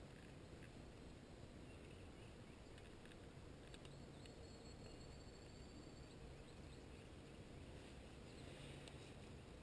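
Near silence: faint steady background hiss with a few faint ticks.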